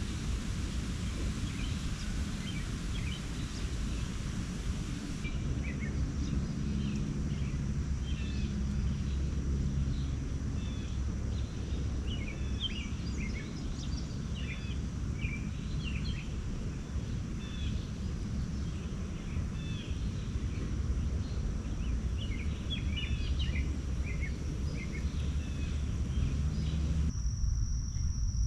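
Wild songbirds chirping in short scattered calls over a steady low rumble of background noise, with a thin high steady insect-like tone. The background changes abruptly twice, about five seconds in and near the end.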